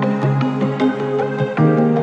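Background music: an instrumental of held chords with light struck notes, moving to a new chord about one and a half seconds in.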